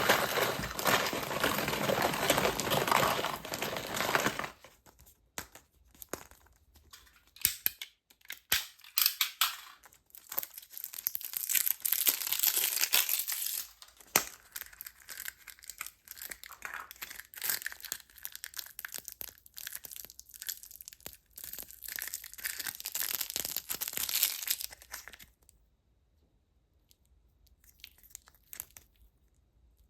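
Candy and surprise-toy wrappers being torn open and crinkled by hand. It comes in stretches of dense rustling with scattered crackles and clicks between them, and goes quiet for the last few seconds.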